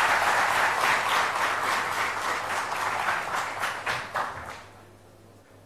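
Audience applauding, a dense patter of many hands clapping that fades away about four and a half seconds in.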